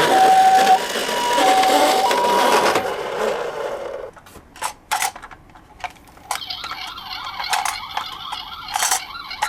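Toy ambulance's electronic hi-lo siren, alternating between two tones in the Japanese ambulance pattern, stops about three seconds in. Several sharp clicks follow.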